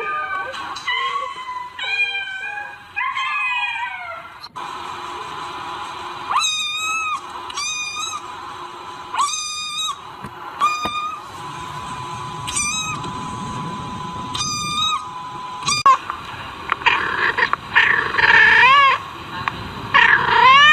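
Cats meowing over and over, one short meow after another, getting louder near the end.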